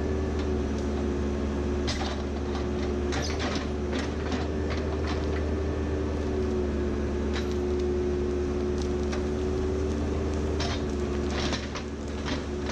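Backhoe's diesel engine working under load with a steady hydraulic whine, with sharp knocks and cracks of wood and bucket scattered through; the load eases briefly near the end.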